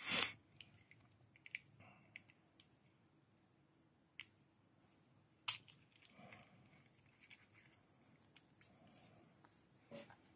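Faint handling sounds of a screwdriver taking small T8 Torx screws out of a knife's aluminium handle: scattered light clicks and ticks, with a short louder thump at the start and a sharp click about five and a half seconds in.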